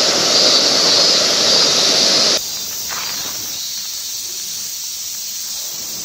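Soto camping gas stove burning with a steady hiss, which cuts off abruptly about two and a half seconds in, leaving a quieter steady background noise.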